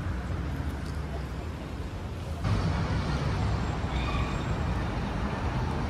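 Street ambience: a steady low rumble of traffic with faint voices of passers-by. The level steps up about two and a half seconds in.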